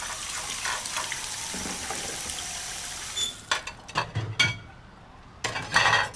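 Kitchen tap water running into a sink, stopping about three seconds in. Then plates and cutlery clink a few times, with a louder clatter of dishes near the end.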